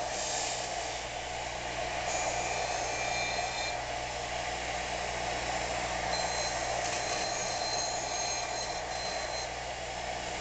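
A powered wire wheel running steadily against the rusty steel backing plate of a bench vise, scouring off surface rust. A thin high squeal rises over the motor's hum twice: from about two to four seconds in, and again from about six to nine and a half seconds in.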